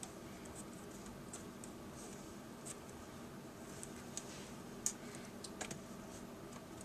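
Faint, scattered small clicks and taps of laptop display parts being handled while cable connectors are plugged back in, with a sharper click about five seconds in, over a faint steady hum.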